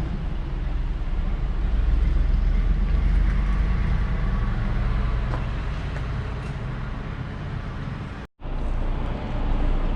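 Steady low rumble of vehicle and road noise, broken by a brief silent gap about eight seconds in.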